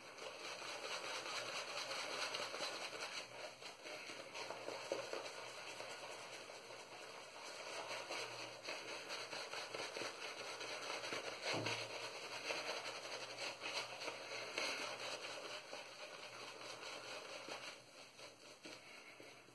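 Stirling 26mm Finest badger shaving brush swirling Siliski Soaps Frigid lather on a stubbled face: a steady wet, crackling swish of bubbles, stopping a couple of seconds before the end.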